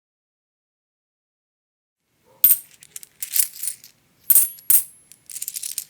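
Metal coins clinking and jingling in several short bursts, with bright ringing tones. They start with a sharp clink about two and a half seconds in and end with a quick rattle of small clinks.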